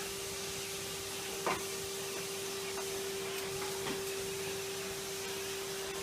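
Numatic Henry cylinder vacuum cleaner running steadily: a constant motor hum over rushing air, with a sharp click about one and a half seconds in and a fainter one near four seconds.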